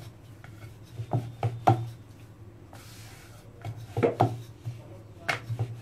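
Wooden rolling pin working a ball of paratha dough on a wooden board: the pin rolls with a low rumble and knocks against the board in short clusters, about a second in, around four seconds in and again near the end.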